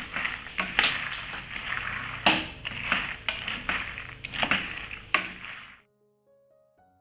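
Shelled peanuts being stirred and turned in a pan of butter with a wooden spatula: the nuts rattle and scrape against the pan in irregular strokes over a light sizzle. The stirring stops near the end, leaving only faint background music.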